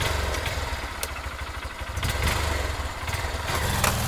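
Motorcycle engine idling with a steady low pulse, then starting to rev up, its pitch rising near the end.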